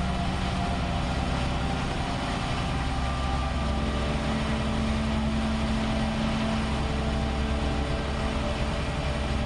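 Heavy diesel engine of a MaxxPro MRAP armoured vehicle running steadily, a low rumble with a hum over it. The engine note steps up slightly after about three and a half seconds.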